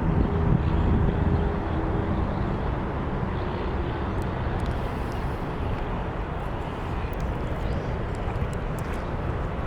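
A motor's steady hum fades out over the first two seconds, leaving a steady low rumble of wind buffeting the microphone.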